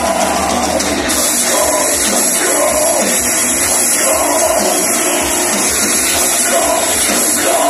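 Heavy metal band playing live through a large concert sound system, heard from among the crowd: a loud, dense, unbroken wall of sound.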